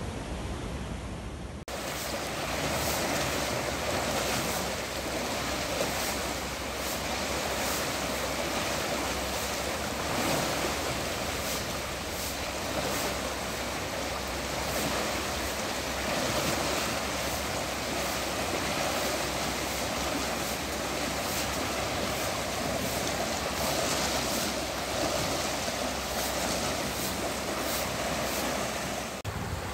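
Swollen river in flood after heavy rain, fed by water released from a reservoir: a loud, steady rush of turbulent water churning through its channel. It starts abruptly about two seconds in.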